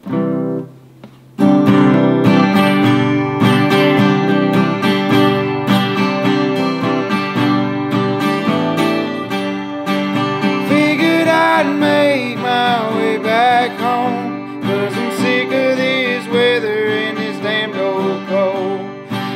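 Song led by strummed acoustic guitar, with a singing voice coming in about halfway through.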